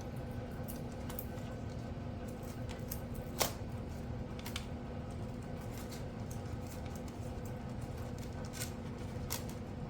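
Scattered light clicks and scraping from hands working track and scenery on a model railway layout, over a steady low hum; one sharper click about three and a half seconds in.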